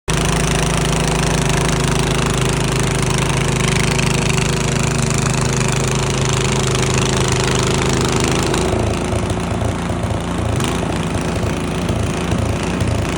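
Small gasoline engine of a snowblower running loud and steady; about nine seconds in its note drops and turns into an uneven pulsing chug.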